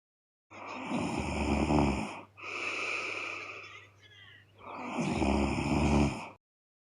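A woman snoring loudly in her sleep: two loud, rough snores, each about a second and a half long, with a softer breath between them.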